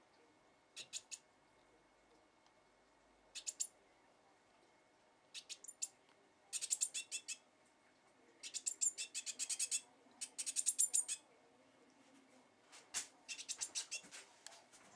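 Fledgling blue tit calling in bursts of rapid, high chirps, a few short bursts at first, then longer and louder runs in the middle and again near the end.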